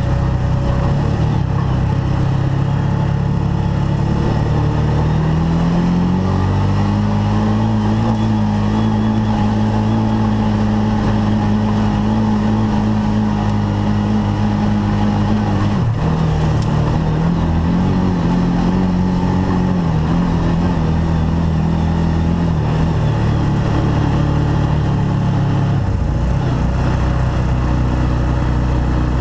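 Arctic Cat Wildcat side-by-side UTV engine running under load on a trail. It climbs in pitch a few seconds in and holds steady for a while. It eases off and picks up again about halfway through, then settles lower near the end.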